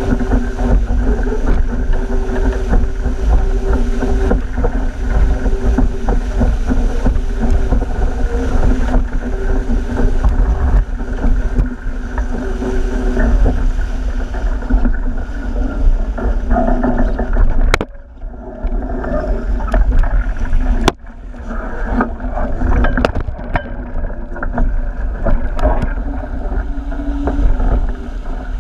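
Rush of water and spray along the hull of an RS800 skiff sailing fast, with wind buffeting the boat-mounted camera's microphone. Twice in the second half the sound briefly cuts out.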